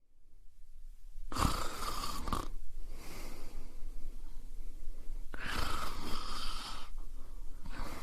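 Snoring: two long snores about four seconds apart, with a fainter breath between them and the next snore just starting at the end.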